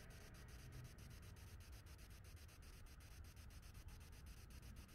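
Near silence: faint background hiss with a fast, even, faint ticking.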